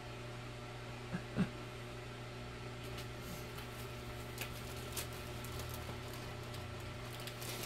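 Faint clicks and rustles of packaging being handled in a box, over a low steady room hum. There is a short low sound about a second and a half in.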